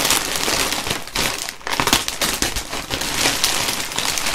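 Plastic packaging crinkling and rustling as it is handled, a dense run of irregular crackles.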